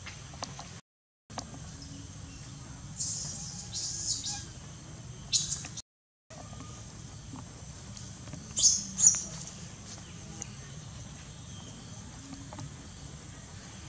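Short, high-pitched squeaky animal calls in clusters, about three and five seconds in and loudest near nine seconds, over a steady high insect-like hiss. The sound cuts out completely twice for a moment.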